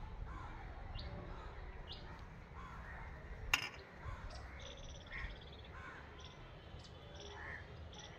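Crows cawing now and then over a low background rumble, with one sharp click about three and a half seconds in.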